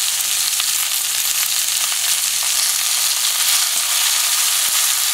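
Steak frying in a nonstick pan with diced tomato and jalapeño: a steady, even sizzle.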